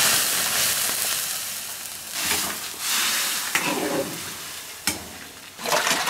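Green beans tipped from a basin into a wok of boiling salted, oiled water, setting off a loud hiss and splash that fades over about two seconds. A few shorter bursts of hissing follow later as the beans settle in the blanching water.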